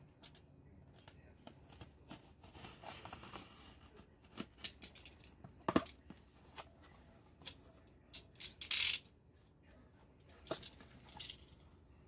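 Box cutter slicing through packing tape on a cardboard shipping box in two longer cuts, among sharp clicks and knocks of the knife and box. The cardboard flaps open and packing rustles near the end.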